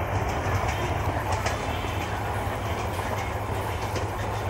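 Passenger train coaches rolling away on meter-gauge track: a steady low rumble with faint wheel clicks over the rail joints.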